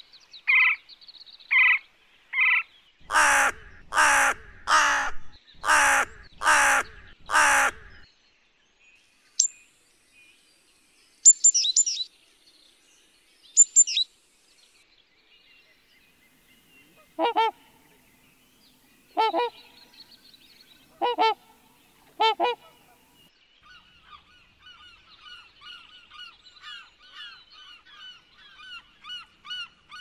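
A run of different bird calls, one kind after another: a few short sharp calls, then six loud harsh calls about once a second, a few high chirps, four spaced calls, and near the end a fast, steady chatter of small calls.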